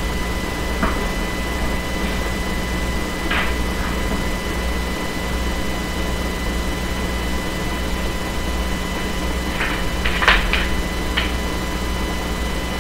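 Steady hum and hiss with a thin, even whine of high tones, and a few faint short clicks, two of them close together about ten seconds in.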